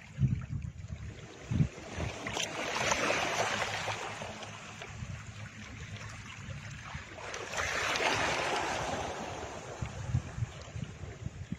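Background soundtrack of surf-like rushing noise that swells up twice, slowly rising and falling, over soft low thumps.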